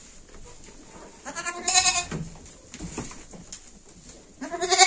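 Goats bleating in a shed: two short bleats, one about a second and a half in and another starting near the end, with a few faint knocks between them.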